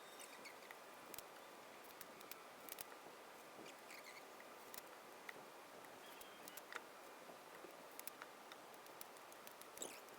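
Near silence with faint, scattered small clicks as clecos are pulled and rivets are set in aluminium aircraft sheet-metal parts.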